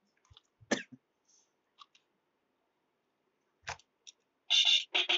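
Toy electronic keyboard: a few scattered clicks of its plastic keys, then from about four and a half seconds a rapid run of loud, short electronic sounds as keys are pressed over and over.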